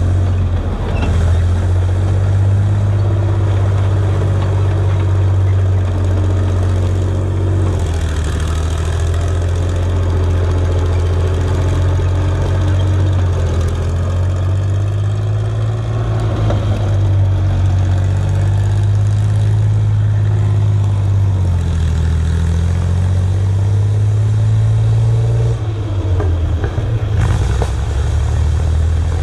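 Tiger II tank's engine running as the tank drives, a loud deep drone whose pitch rises and falls a little. Near the end the sound breaks up briefly and changes.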